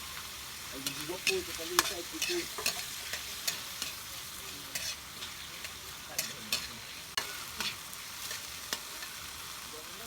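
Food sautéing in hot oil in a pan, sizzling steadily as it is stirred, with a utensil clicking and scraping against the pan at irregular moments.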